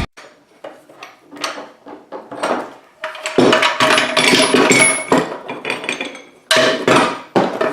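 Metal-on-metal knocks and clanking while a new ball joint is pressed into a lower control arm with a ball joint press. First comes a string of separate knocks, then a denser stretch of ringing metal clatter about three seconds in, and a few more loud knocks near the end.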